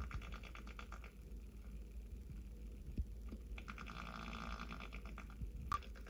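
White-footed mouse drumming its paw rapidly against a surface, making a buzzing hum. It comes in two bouts: about a second at the start, and about a second and a half past the middle. Two sharp clicks stand out, one near the middle and one near the end.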